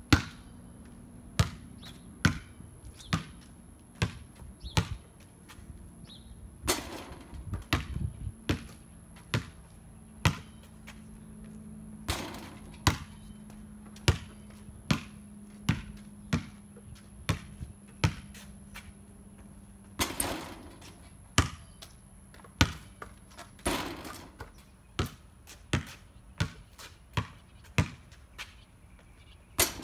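A basketball dribbled on a concrete slab: single sharp bounces, unhurried, mostly about one a second, in runs with short pauses. A few longer, noisier clatters come between the runs, and a faint steady hum sits underneath.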